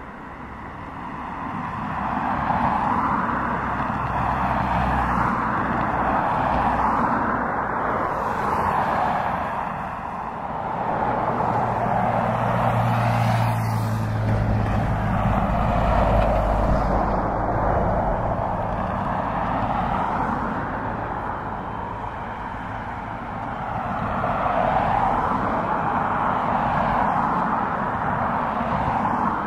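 Boeing 777 freighter's twin GE90 turbofan engines running at taxi power: a steady jet rush that swells and eases in slow waves as the aircraft taxis and turns toward the listener, with a low hum strongest around the middle.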